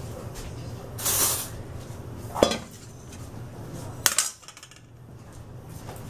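A stainless steel mixing bowl set down on a countertop with a knock, then a ceramic soup spoon laid into the bowl with a sharp clink about four seconds in, after a brief rustle near the start.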